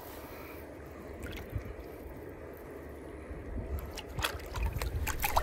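Water sloshing and dripping around a largemouth bass held by the lip in shallow water as it is released, with a few small splashes about four seconds in and near the end.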